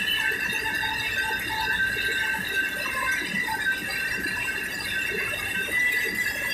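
Tractor-driven stone flour mill running: a steady high-pitched whine over a continuous rattle.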